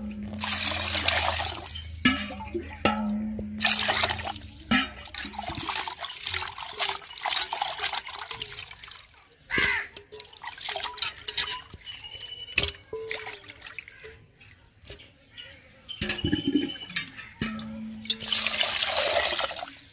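Water sloshing and splashing in an aluminium bowl as small fish are rubbed and washed by hand, coming in bursts with short pauses between.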